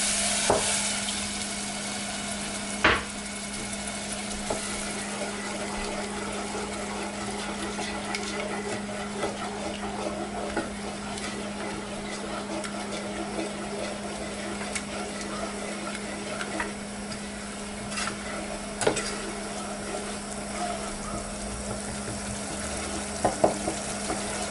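Onion and spice paste sizzling as it fries in a saucepan on an electric stove, stirred with a spoon, with a few sharp clicks of the spoon against the pan. A steady low hum runs underneath.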